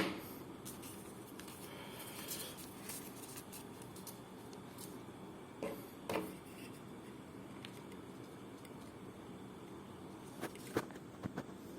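Plastic stapleless stapler and two sheets of paper being handled: faint rustling with a few light clicks, two about six seconds in and three in quick succession near the end.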